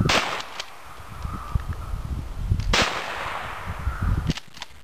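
Two 12-gauge pump shotgun shots fired at crows overhead, about two and a half seconds apart, each trailing off in a short echo.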